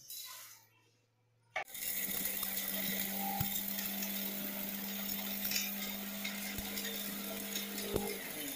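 Electric mixer grinder running with its small steel dry-grinding jar, grinding dry-roasted whole spices into chana masala powder: a steady motor hum under the hiss and rattle of the spices. It starts about a second and a half in and stops just before the end.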